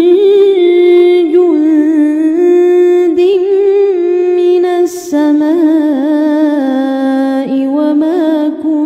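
A woman's unaccompanied Quran recitation in melodic tajweed style, drawing out long held notes with small ornamental turns. There is a brief break about five seconds in before the chant goes on.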